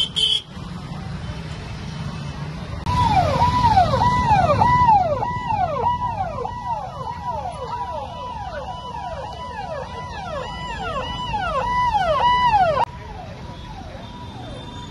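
Convoy vehicle siren sounding a rapid, repeating falling-pitch wail, about two to three sweeps a second, over engine rumble. It starts about three seconds in and drops suddenly to a fainter level near the end.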